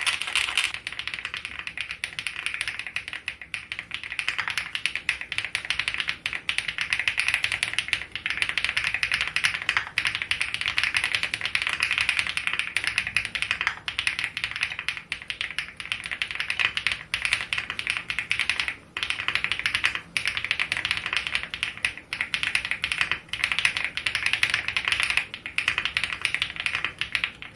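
Continuous fast typing on a WEIKAV NUT65 aluminum mechanical keyboard with an FR4 plate, fitted with crisp-feel switches. The keystrokes come in a dense, unbroken stream, with a couple of brief pauses about two-thirds of the way in.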